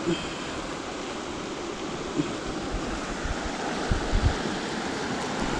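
Steady rushing noise of wind and flowing water, with a few low thumps on the microphone about four seconds in.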